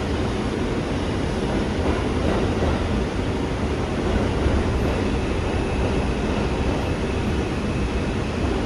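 R142 subway car running between stations, a steady rumble of wheels on rail and running gear, with a faint high whine joining about five seconds in.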